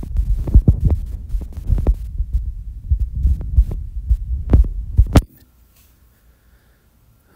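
Microphone handling noise from the phone being held and its screen tapped: a loud low rumble with irregular thumps. It cuts off suddenly about five seconds in, leaving near silence.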